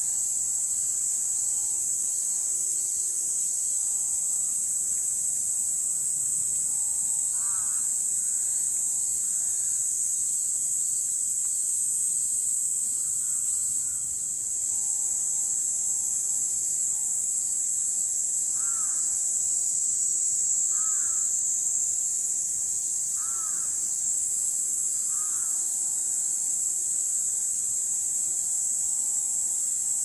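A steady, high-pitched insect chorus, with a few short, lower calls from another animal over it about a third of the way in and several more in the second half.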